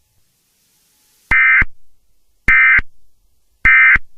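Three short bursts of Emergency Alert System digital data tones, each a brief buzzy chirp about a second apart: the end-of-message code that closes an EAS alert.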